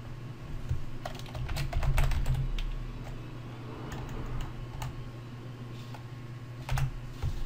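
Computer keyboard typing: a quick run of keystrokes, then a few scattered key presses, over a low steady hum.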